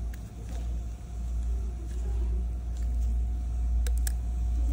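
A steady low rumble, with two short sharp clicks a little before the end.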